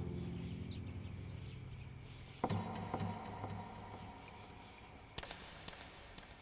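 A sustained background tone fades out, then a single knock sounds about two and a half seconds in, followed by a brief ring and a few softer knocks. Three or four sharp clicks come near the end.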